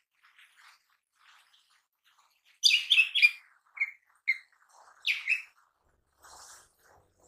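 Lesser green leafbird (cucak ijo mini) singing: faint calls, then a loud, rapid burst of high chirps about two and a half seconds in. Single sharp notes follow, and another loud double note comes about five seconds in.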